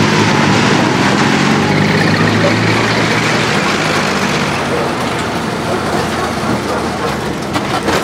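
Motor vehicle engine running, its low note fading away about two seconds in. A steady rushing noise carries on after it.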